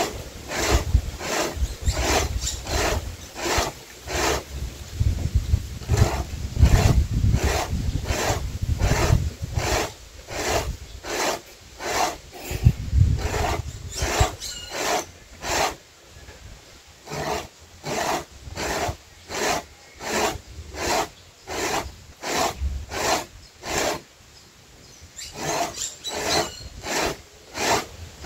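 Corn being rubbed by hand over a homemade punched-metal grater on a wooden board, a steady run of rasping scrapes at about two strokes a second. The strokes stop briefly near the end, then start again.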